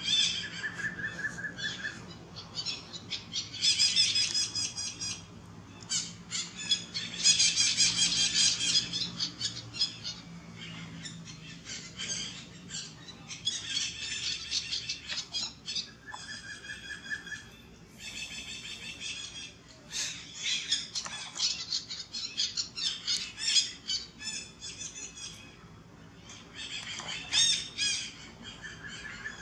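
Birds squawking and chattering in repeated bursts of rapid calls, with a short high trill near the start and again about halfway through.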